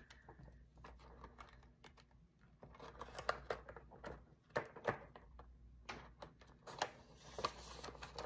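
Handling of polymer banknotes and the plastic pockets of a ring binder: irregular crinkles, rustles and light taps as the notes are slid into a pocket and the pages are turned.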